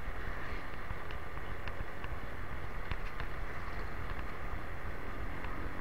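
Motorcycle riding along at a steady pace: engine and road noise held at an even level, with wind rushing over the rider's microphone.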